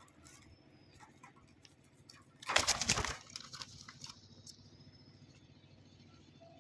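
A short flurry of a pet dove's wings flapping, about two and a half seconds in, amid faint scattered clicks.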